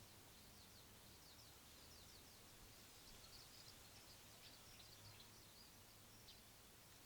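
Faint, rapid high chirps of small birds twittering in a busy run through most of the stretch, over a soft steady low hum and hiss of outdoor background.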